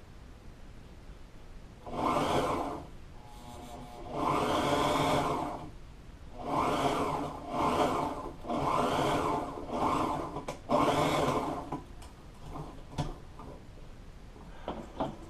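Upholstery sewing machine stitching marine fabric in short runs: about seven bursts of running stitches, each under a second and a half, starting a couple of seconds in, with brief pauses between them. Near the end come a few light clicks as the work is handled.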